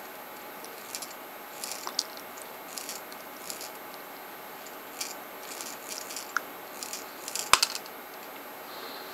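Recirculating steel balls clicking and rattling inside an open 3D-printed plastic ballnut as it is turned by hand along a 16 mm trapezoidal lead screw. The clicks come in irregular bursts, with one louder click near the end.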